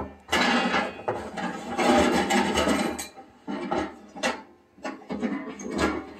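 Scraping and rustling of snow and camping gear being handled, playing from a television, in irregular bursts.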